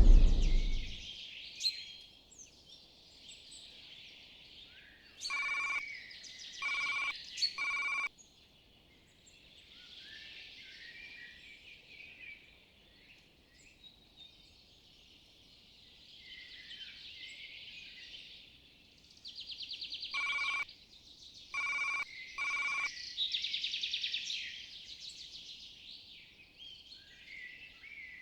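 Wild birds singing and chirping, with two sets of three short, clear ringing notes, the first about five seconds in and the second about twenty seconds in.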